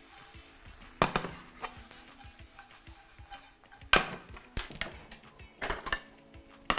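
Tomatoes and pine nuts frying in olive oil in a frying pan, a soft sizzle, with a spatula knocking against the pan several times, loudest about a second in and again about four seconds in.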